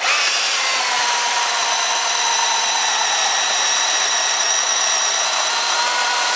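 Chainsaw running at a steady high speed, with a high, even whine that holds level throughout.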